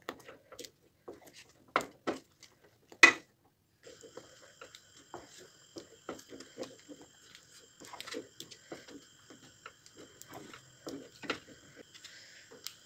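Wooden spoon stirring a thick molasses and walnut pudding in a stainless steel pot: irregular soft squelching strokes with a few sharp knocks of the spoon against the pot, the loudest two about two and three seconds in. A faint steady high whine joins about four seconds in.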